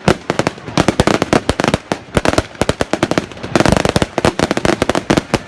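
Fireworks going off in quick succession: a dense run of sharp bangs, several a second, with no break.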